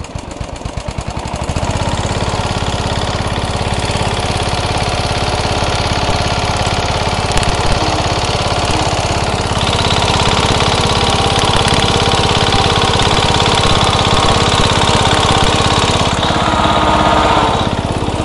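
MTD riding lawnmower engine coming up to speed in quick pulses over the first second and a half, then running steadily and loudly under load as the mower is driven through sticky mud, its wheels spinning.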